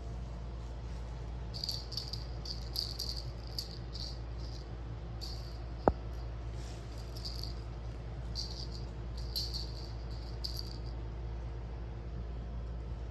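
A cat toy rattling in irregular short bursts as a cat bats and bites at it, with one sharp click about six seconds in, over a steady low hum.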